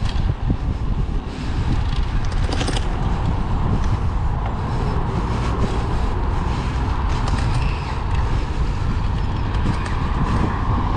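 Steady wind rush and rolling rumble of a moving bicycle, picked up by a GoPro held in the rider's teeth on a bite mount, with scattered clicks and creaks.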